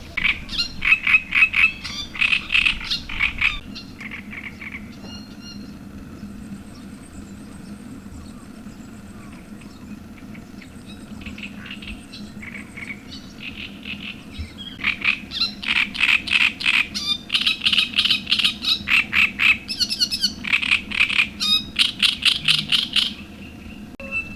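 Frogs calling from the lake shore in loud trains of rapid pulsed croaks, about five pulses a second, in bouts of several seconds with a quieter lull between.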